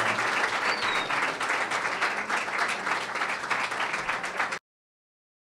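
Audience applauding, a dense run of many hands clapping that cuts off abruptly about four and a half seconds in.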